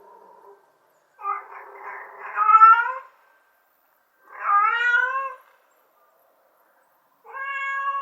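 Mother cat calling for her kittens: a faint short call at the start, then three long, drawn-out meows a couple of seconds apart, the last still going at the end.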